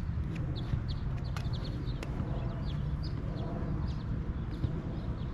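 Outdoor ambience: small birds chirping in short, repeated high notes over a low, steady rumble.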